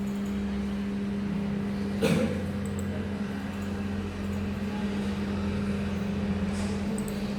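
A steady low hum, with one sharp knock about two seconds in.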